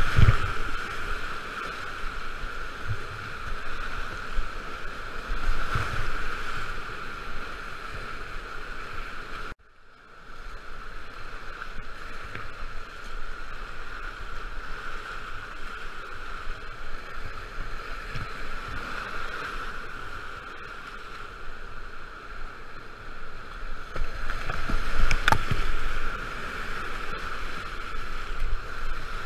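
Whitewater rapids rushing around a kayak, with water splashing over the boat and the camera; the loudest splashes come at the start and about 25 seconds in. The sound drops out suddenly for a moment near ten seconds in.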